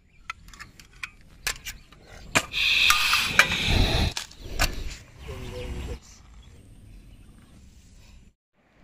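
Light metallic clicks as a small portable camping gas stove's folding pot supports are handled. Then an instant-noodle packet's plastic wrapper crinkles and tears open for about two seconds, followed by faint handling noise that cuts off suddenly near the end.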